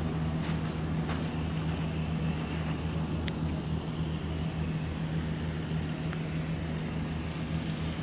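A steady low hum over a faint even background hiss.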